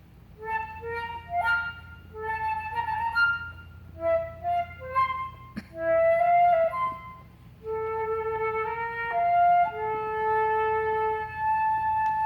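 Solo flute playing a melody: phrases of short notes for the first several seconds, then longer held notes near the end.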